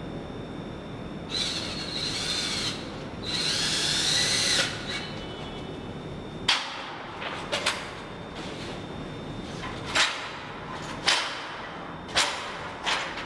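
Handheld power drill run in two short bursts of a second or so each, its whine wavering up and down in pitch. Then a series of sharp snaps and crackles from the large printed sheet being handled at the wall.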